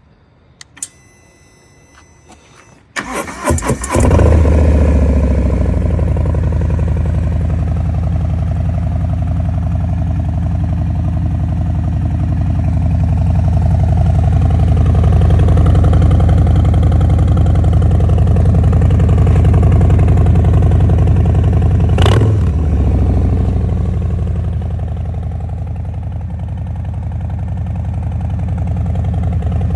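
2020 Harley-Davidson Low Rider S's Milwaukee-Eight 114 V-twin engine cranked on the starter about three seconds in, catching within a second and settling into a steady, loud idle. One quick throttle blip about 22 seconds in.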